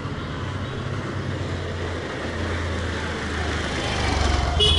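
A road vehicle's engine passing on the street, a low rumble that grows louder toward the end; a short pitched tone sounds right at the end.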